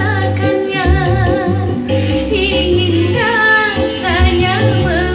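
A woman singing a dangdut song into a handheld microphone, her voice wavering through ornamented held notes, over dangdut backing music with a steady bass beat.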